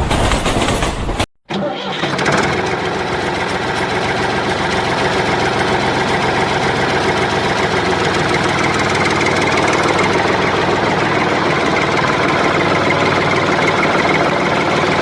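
A small engine running steadily at an even speed, after a short sound that cuts off abruptly about a second in.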